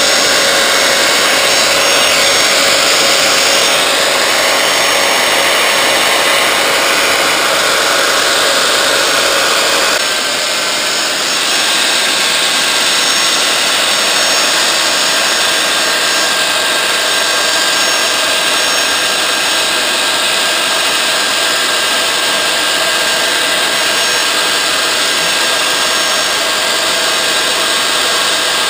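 Belt sander, a handheld model clamped upside down in a vise, running steadily while a speckled alder stick is pressed against the moving belt to round and shape it. The level drops slightly about ten seconds in, then carries on.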